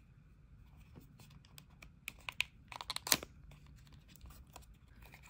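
A small paperboard lip-tint box being opened by hand, its sealed end flap pulled and torn free. Scattered clicks and crinkles start about a second in, thicken into a dense crackle, and peak in one sharp snap about three seconds in.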